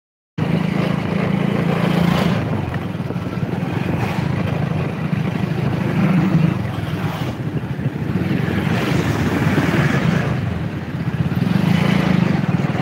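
Riding a motorcycle in traffic: engine and road noise under wind rushing over the microphone, swelling and easing every few seconds. The audio cuts out for a moment at the very start.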